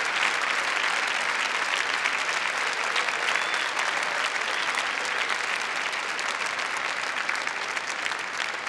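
Large arena crowd applauding steadily, the clapping slowly fading toward the end.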